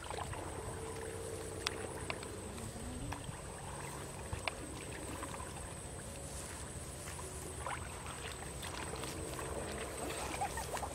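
Footsteps wading through shallow muddy water, with light splashes and sloshing.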